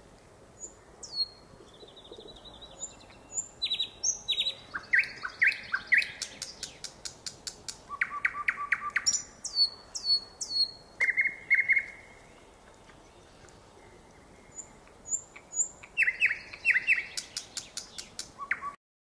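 Nightingale singing: phrases of rapid repeated notes and dry clicks alternating with high whistles, separated by short pauses, with a longer pause of about two seconds past the middle. The song cuts off suddenly near the end.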